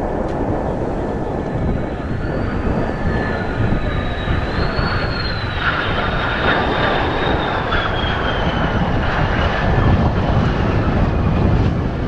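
Mitsubishi F-2 fighter's single F110 turbofan on landing approach, passing close with a high whine that falls in pitch as it goes by. Heavy wind buffeting on the microphone runs underneath.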